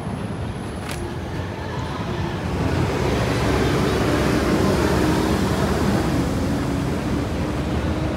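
Street traffic noise: a motor vehicle's engine and tyres passing, growing louder about two and a half seconds in and easing off slightly near the end.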